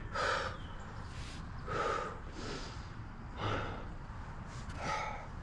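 A man breathing heavily with exertion, four loud breaths about a second and a half apart.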